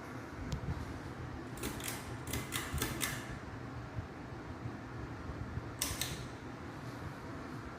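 Harbor Breeze ceiling fan with a bad capacitor, running with a steady low hum. A quick run of clicks comes about one and a half to three seconds in, and a couple more near six seconds.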